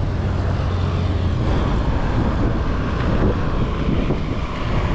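Road traffic passing close by on a highway, a steady rumble of engines and tyres.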